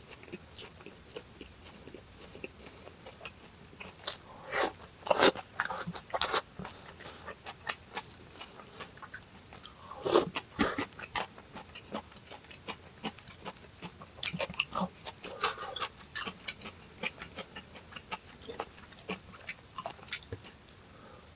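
Close-miked chewing and crunching of hong-eo samhap: fermented skate with boiled pork and kimchi. There are many small wet clicks and crackles, with louder bites about four to six seconds in and again around ten seconds in.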